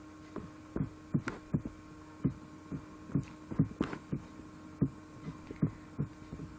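Irregular soft clicks of a computer mouse, about one to three a second, picked up by the recording microphone over a steady low electrical hum.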